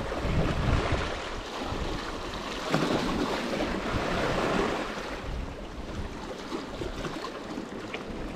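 Sea water surging and washing over shore rocks in a running tide. It swells to its loudest about three to four seconds in, then eases off.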